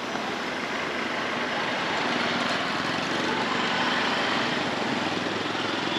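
Street traffic: a steady hum of vehicle engines that grows a little louder a few seconds in.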